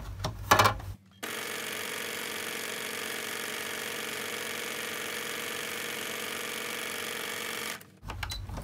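Domestic electronic sewing machine running at a steady speed, stitching a seam along a fabric strip: an even mechanical hum that starts abruptly about a second in and stops just before the end. A few clicks and a knock from handling the fabric come first.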